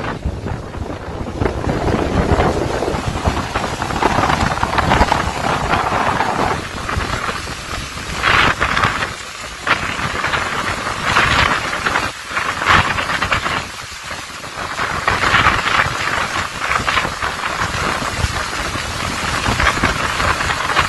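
Tropical-storm wind and heavy rain, rising and falling in strong gusts every few seconds.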